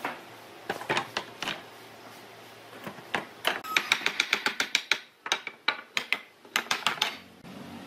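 Sharp wood-on-wood knocks and taps as pine frame rails are handled on a wooden workbench and knocked with a wooden mallet. A few knocks at first, then a quick run of light taps about midway and more irregular knocks after.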